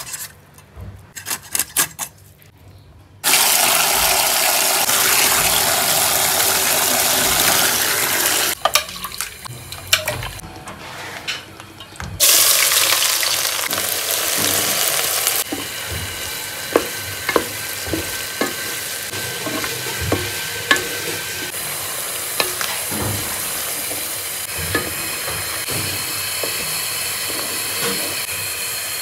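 Sliced onions frying in hot oil in a pan. Sharp cutting clicks come first, as onions are sliced on a curved blade. Loud sizzling hiss then runs for several seconds, rises again about twelve seconds in as onions are dropped into the oil, and settles into steadier frying with frequent knocks and scrapes of a spatula against the pan.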